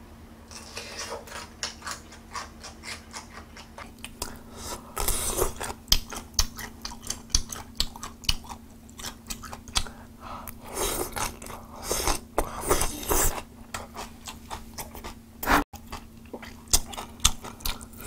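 A person chewing a mouthful of braised hairtail and rice close to the microphone, with many small wet clicks and crunches coming in irregular clusters, over a steady low hum.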